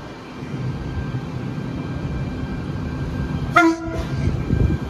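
Intercity V-set double-deck electric train arriving at a platform with a steady low rumble, and one short horn blast about three and a half seconds in, the loudest sound.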